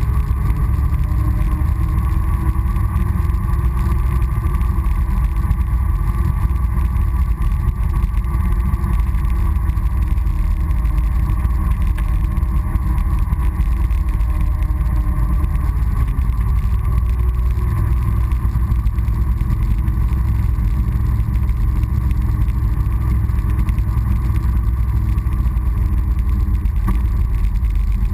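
Honda Foreman ATV's single-cylinder four-stroke engine running under way, its pitch drifting slowly up and down with speed, under heavy wind rumble on the front-mounted camera's microphone.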